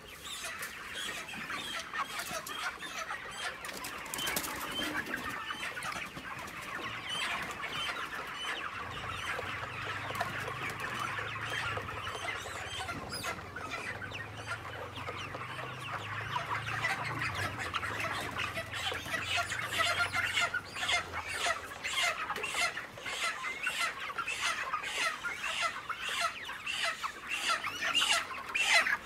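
A large flock of month-old broiler chickens clucking and calling all at once in a dense, continuous chatter, growing a little louder near the end.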